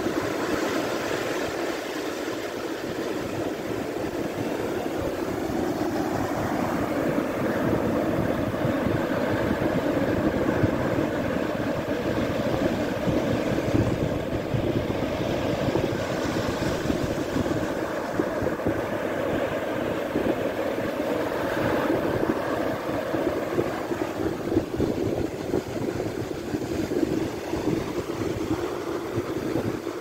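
Sea surf breaking and washing up a sandy beach: a steady rushing noise with no clear gaps between the waves.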